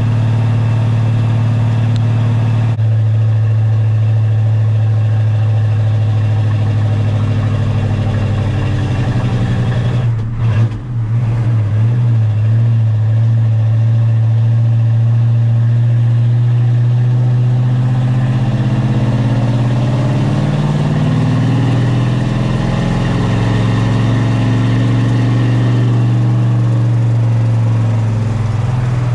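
Truck engine running steadily as the truck drives, heard from inside the cab. About ten seconds in it dips briefly, then picks back up, and later the pitch climbs.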